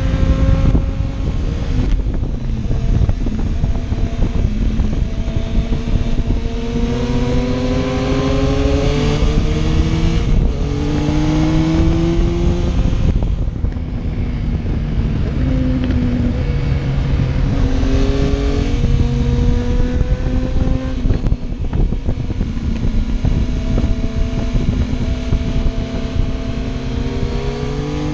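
Motorcycle engine accelerating up through the gears, its pitch climbing and dropping back at each shift several times over, with heavy wind rumble on the microphone.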